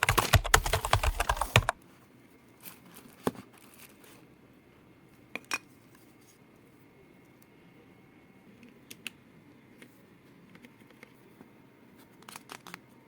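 Rapid clacking of keys on an old computer keyboard for under two seconds, then a few scattered single key clicks.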